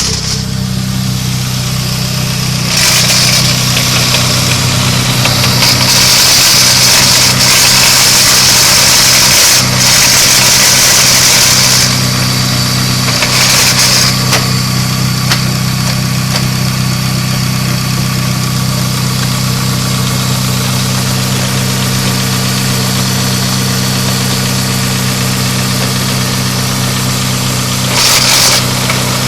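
Car engine idling with a newly installed straight-cut racing gear set in the gearbox, and a crackling noise that the owner cannot account for. The high crackling comes and goes, longest from about three to twelve seconds in, with shorter spells about fourteen seconds in and near the end.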